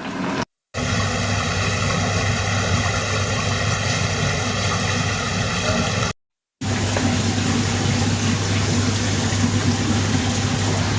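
A steady mechanical hum with a whine of evenly spaced overtones, cut to silence about six seconds in, followed by a steady rushing noise over a low hum.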